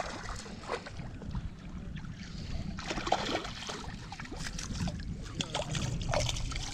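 Water sloshing and splashing at the surface while a small redfish hooked on a fly rod is played in, in clusters about three seconds in and again near the end, over a steady rumble of wind on the microphone.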